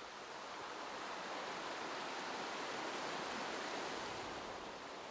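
Running water of a river: a steady rushing noise that swells gently in the middle and eases off near the end.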